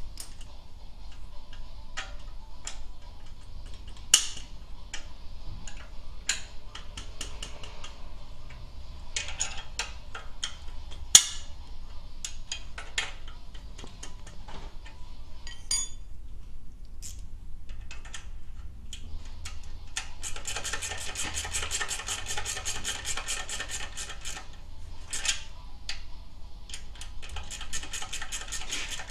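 Hand wrench working the muffler mounting bolts on a motorcycle: scattered metal clicks and taps, with two sharper knocks about 4 and 11 seconds in. About two-thirds of the way through comes a long run of rapid, even ratchet clicking as a bolt is turned.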